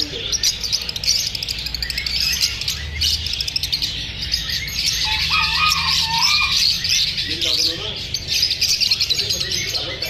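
A cage of lovebirds chattering: a dense, continuous stream of short, high chirps from many birds at once.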